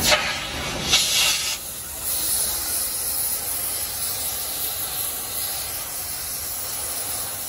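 Gas cutting torch hissing steadily as its flame heats the bent steel crane boom to soften it for pressing straight. There are two louder rushes of hiss in the first second and a half.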